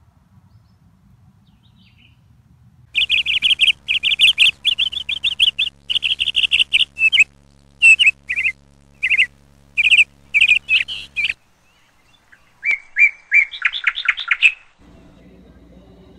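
A small songbird chirping in fast runs of short high notes, starting about three seconds in and breaking off around eleven seconds, with a shorter bout of quicker trills soon after.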